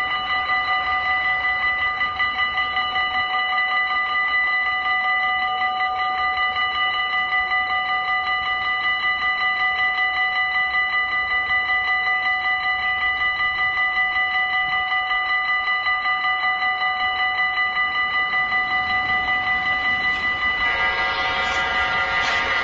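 Level-crossing warning bell ringing with a rapid, even pulse. About twenty seconds in, the approaching train's noise joins it and grows.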